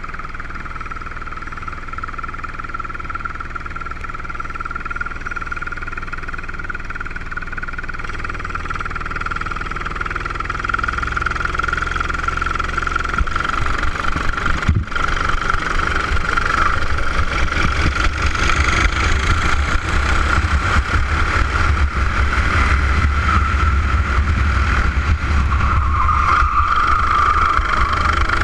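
Racing kart engine running on track, recorded onboard: a steady high engine note that grows louder over the first dozen seconds as a low rumble builds in underneath. One sharp knock about halfway through.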